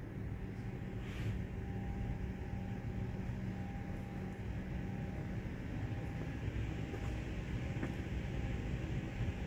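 Steady low hum and rumble of an empty underground station platform, with a faint higher tone that comes and goes and a few light ticks.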